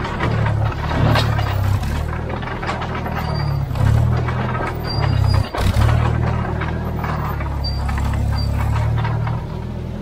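Vintage Bristol 25 crawler dozer's engine running as it drives, its pitch shifting a few times, with a steady clatter from the steel tracks and a brief drop about five and a half seconds in.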